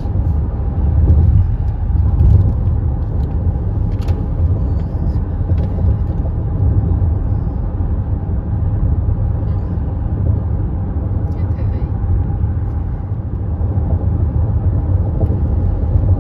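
Steady low rumble of road noise heard from inside a moving car.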